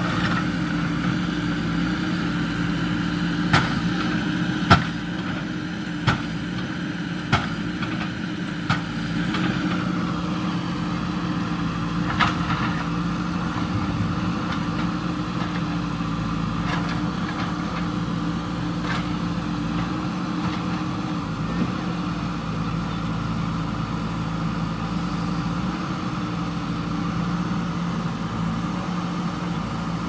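JCB 3DX backhoe loader's diesel engine running steadily while the backhoe works. About six sharp knocks in the first dozen seconds, loudest about five seconds in, as the bucket strikes broken concrete and rubble.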